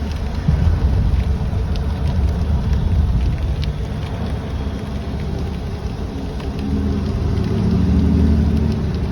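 Car driving in the rain: a steady low road-and-engine rumble with scattered light ticks of raindrops, swelling a little near the end.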